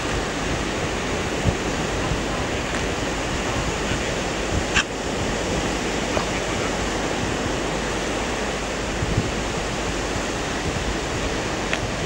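Steady wash of surf breaking on a sandy beach, with one brief sharp sound about five seconds in.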